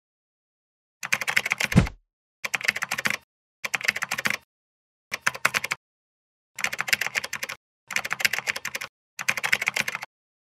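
Computer keyboard typing sound effect: seven short runs of fast key clicks, each under a second long, separated by brief silences, with a low thud near the end of the first run.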